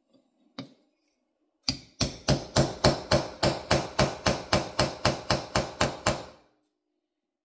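Small steel hammer tapping a brass punch held on a steel part: an even run of about eighteen sharp metal taps, about four a second, starting about two seconds in and stopping about six seconds in. A single light click comes before the taps.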